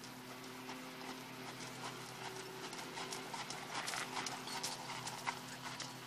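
Hoofbeats of an American Paint Horse mare jogging on a sand arena: a steady run of soft strikes that grows louder as she passes close by, about four to five seconds in.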